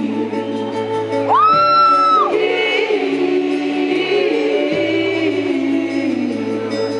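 Live pop song with wordless sung vocals holding long notes over the band, one high held note about a second and a half in.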